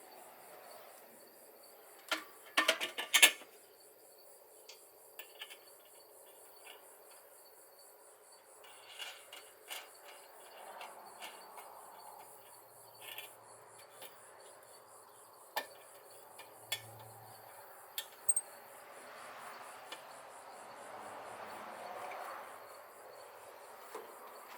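Scattered metallic clinks, knocks and taps of tools and metal parts, with a loud cluster of sharp knocks about two to three seconds in, over insects chirping steadily.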